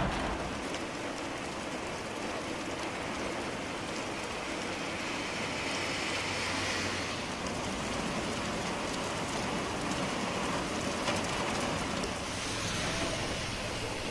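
Heavy rain pouring onto a waterlogged road, a steady hiss of falling water.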